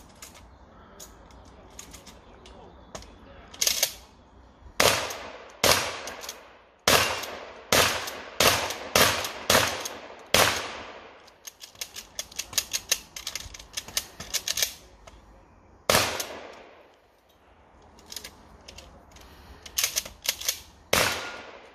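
Shotgun firing during an IPSC shotgun stage: about a dozen shots in quick strings, each with an echoing tail. There is a first rapid string of about nine shots, a lone shot later, then a fast group near the end. A quick run of clicks in the middle, between strings, is the shotgun being reloaded.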